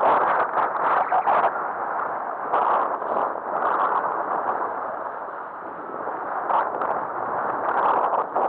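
Wind buffeting the microphone in uneven gusts over the rush and splash of water along the hull of a small trailer sailer under sail.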